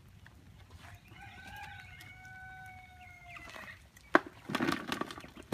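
A rooster crows once, a long call starting about a second in and lasting nearly three seconds, its pitch holding and dropping slightly at the end. About four seconds in comes a sharp knock, then the rustle of compost sliding off the tipped wooden sifter into a plastic drawer.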